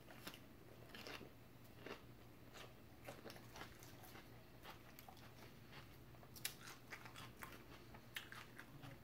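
Faint close-up chewing of a mouthful of lettuce salad: soft crunches and small mouth clicks, busier about six and a half seconds in.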